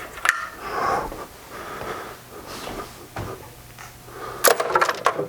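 Hand tools being handled during a small-engine teardown on a workbench: a few scattered knocks, then a quick run of sharp clicks near the end, the loudest part.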